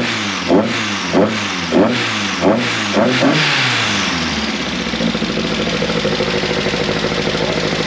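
VW Golf Mk1 Pirelli's four-cylinder engine blipped about six times in quick succession, each rev rising and falling sharply, with a strong intake sound. After about three seconds the revs drop away, and the engine settles into a steady idle.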